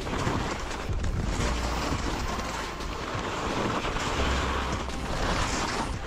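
Skis sliding and scraping over hard, wind-packed snow on a downhill run, with wind rumbling on the microphone in gusts.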